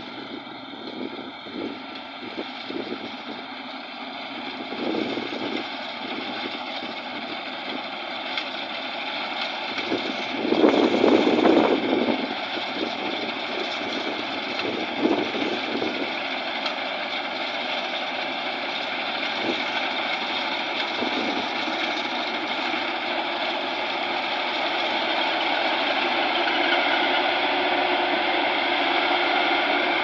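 Maxxi Bimo 102 rice combine harvester running as it harvests, its engine and threshing machinery growing steadily louder as it comes closer. A short, louder burst of noise stands out about ten seconds in.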